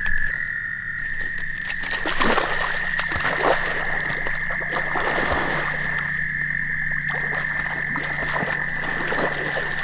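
German shorthaired pointer splashing into a pond and swimming, paddling water as it goes out to a stick. Over it runs a steady, high, unbroken trilling chorus of frogs.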